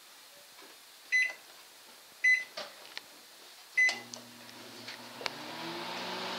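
Microwave oven keypad beeping three times, with a few small clicks, then the oven starts running with a steady hum about four seconds in.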